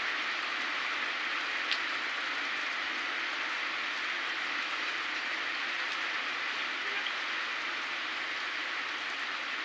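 Heavy rain falling steadily, an even hiss, with one small tick about two seconds in.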